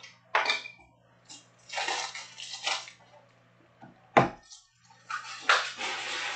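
Plastic-wrapped Ultra Pro toploader packs rustling and crinkling as they are handled, in several short bursts, with a sharp knock about four seconds in.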